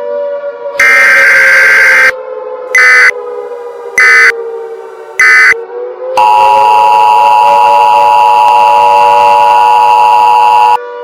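Emergency Alert System tones: a long SAME digital data burst, then three short end-of-message bursts about a second apart, then the steady two-tone EAS attention signal for about four and a half seconds. A siren wails underneath, its pitch slowly dropping and then rising again.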